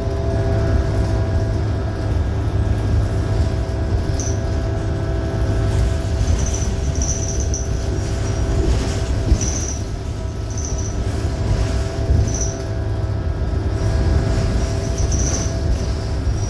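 Interior drivetrain noise of a 2018 New Flyer XDE60 diesel-hybrid articulated bus, with its Cummins ISL9 engine and Allison hybrid drive running: a steady low rumble with several steady whining tones. From about four seconds in, short high-pitched squeaks recur every second or two over it.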